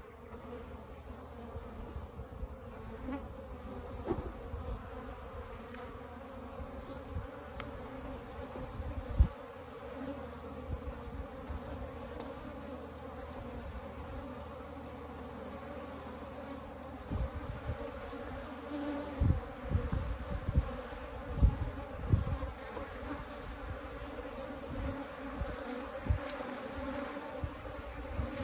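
A colony of Africanized honey bees buzzing steadily as their hive box is opened. Occasional low thumps, more frequent in the second half.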